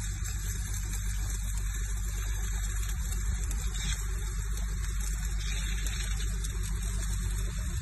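Stick (shielded metal arc) welding: the arc crackling and hissing steadily over a strong, low electrical hum.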